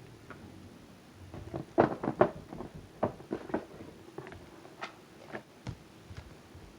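Handheld plastic fidget toy being worked by hand: a run of sharp clicks and snaps, the loudest two close together about two seconds in, then lighter, more scattered ones.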